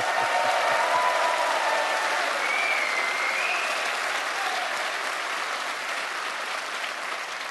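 Large audience applauding, strongest at the start and slowly dying down.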